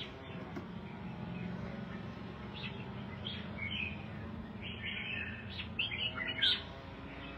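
Red-whiskered bulbul chirping in short calls, a quick run of them in the second half with the loudest near the end, over a low steady hum.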